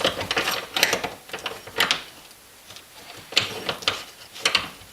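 Socket ratchet wrench clicking in short, irregular bursts as mounting bolts are cranked down; the ratchet is worn.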